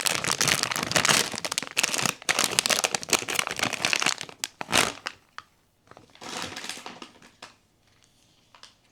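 Blind-box packaging crinkling and rustling as it is handled and opened by hand. The crinkling is dense for about five seconds, comes back in a shorter burst, then settles to a few light taps.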